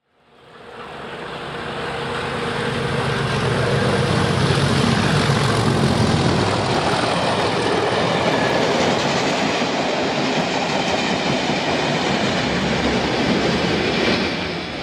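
An OO gauge model train running past, a steady rumble and clatter of wheels on track. It fades in over the first second and eases off near the end.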